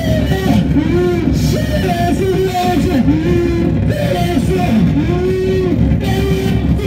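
Live noise-music performance through a PA, loud and continuous: pitched tones swooping and bending up and down over a dense, distorted low rumble.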